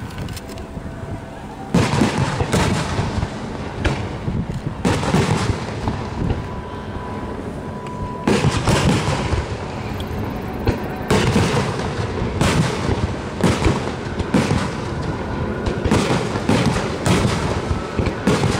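Fireworks display: aerial shells bursting in a long string of booms, the first about two seconds in, often several close together.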